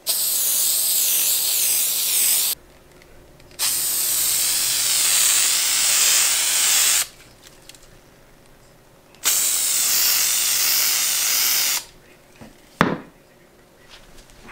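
Hissing spray in three long bursts of two to three and a half seconds each, then a single sharp click near the end.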